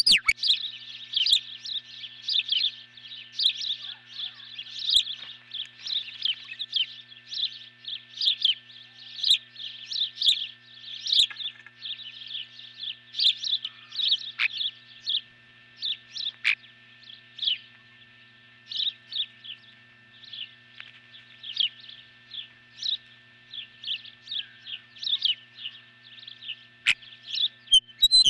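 Ospreys on the nest calling: a long, unbroken run of short, sharp, high whistled chirps, several a second, given as the pair guard the nest and chicks.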